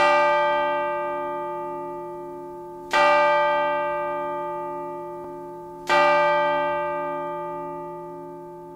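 A bell tolled three times, about three seconds apart; each strike rings out and slowly dies away.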